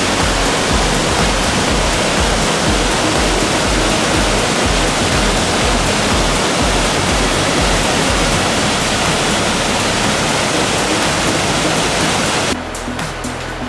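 Steady rush of falling water at Fukiware Falls, with background music beneath it. The water noise cuts off abruptly near the end, leaving only the music.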